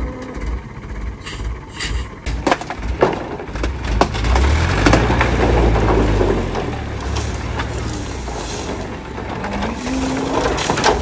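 Long bamboo poles on a moving truck's load knocking and clattering against each other and the ground, with several sharp wooden clacks. The truck's engine runs low underneath, strongest around the middle.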